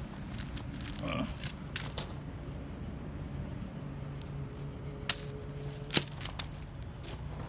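Footsteps crunching on gravel, with a few sharp clicks or knocks, the loudest about six seconds in, over a steady low hum.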